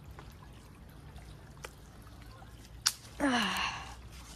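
A few light snaps of dry twigs, with a sharp one just before three seconds in. Right after it comes a short, breathy vocal burst, a huff or grunt of effort that falls in pitch.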